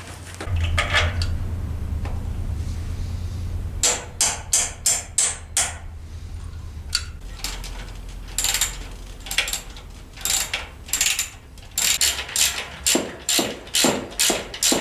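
Ratcheting clicks in several short runs, about four or five sharp clicks a second, with pauses between the runs.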